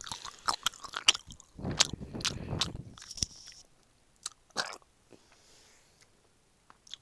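Biting and chewing a gummy candy pizza slice: a run of mouth clicks and smacks for about three and a half seconds, then only a few stray clicks.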